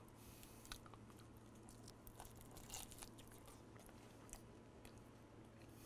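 Faint biting and chewing of a mouthful of deep-fried turkey leg, with scattered small crunchy clicks.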